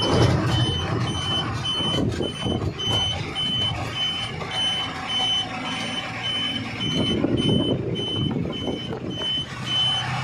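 Truck cab on the move: engine and road rumble under a high electronic beep repeating evenly about twice a second.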